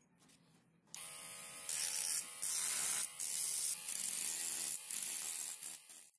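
A homemade mini grinder, a 12 V DC motor turning a sandpaper sanding drum, starts up with a hum about a second in. A steel utility-knife blade is then ground against the spinning drum, giving a loud hiss that breaks off briefly a few times as the blade is lifted away.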